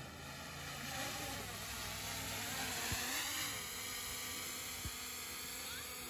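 A low outdoor hum that swells towards the middle and then eases off, with two soft knocks.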